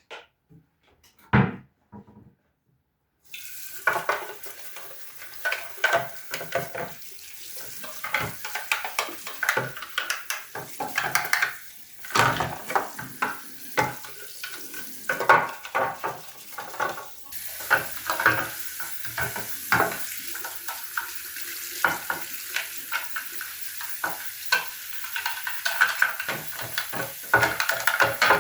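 Food sizzling in a frying pan with a utensil stirring and knocking against it, many sharp clicks over a steady hiss. It starts abruptly a few seconds in, after a couple of isolated knocks.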